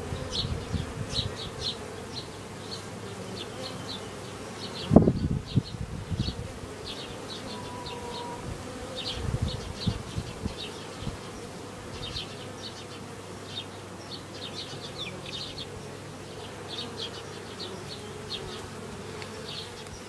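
Honeybees buzzing around a water tub and hive entrance, a steady hum. A thump about five seconds in is the loudest sound, with a few softer bumps near ten seconds.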